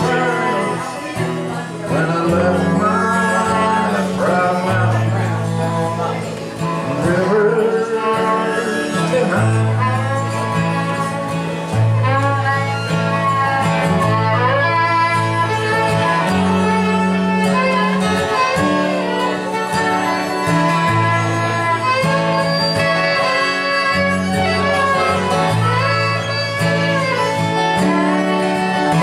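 Live acoustic country-folk band: a strummed acoustic guitar with a bowed fiddle and a harmonica, and a man singing.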